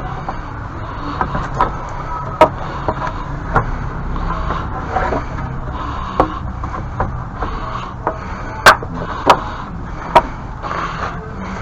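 Scattered sharp knocks and clatter, irregularly spaced and loudest about two and a half and eight and a half seconds in, over a steady low rumble.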